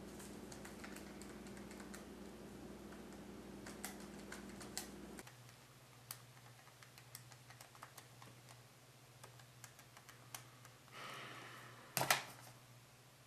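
Sparse light clicks of calculator keys and a pencil tapping on paper over a steady low hum. About five seconds in the hum drops away, and small scattered taps of fingers on a phone follow, with a short rustle and a couple of louder knocks near the end.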